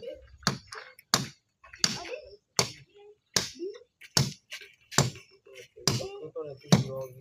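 Steady hand-hammer blows on the timber formwork of a column, about one every three-quarters of a second, each a sharp crack.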